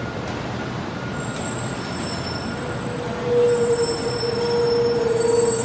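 700 series Shinkansen train rolling slowly past the platform with a steady rumble. A steady squealing tone from the wheels sets in about three seconds in and grows louder, with faint high-pitched whistling tones above it.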